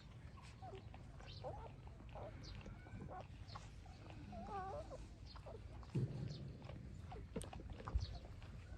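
Nursing puppies making faint, short whimpers and squeaks, one of them a wavering whine about halfway through, over a low background rumble.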